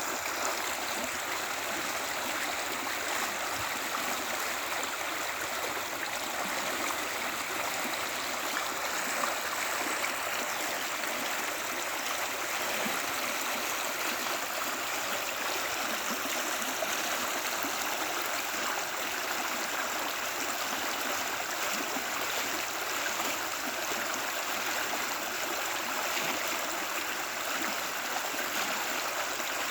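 Creek water flowing over rocks, a steady, even rush and babble.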